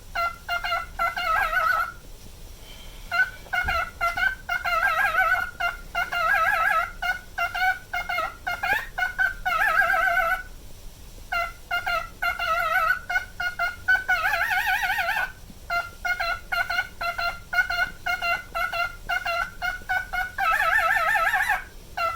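Male cockatiel whistling its repeated song, the notes wavering in a quick vibrato, in phrases with short pauses between them.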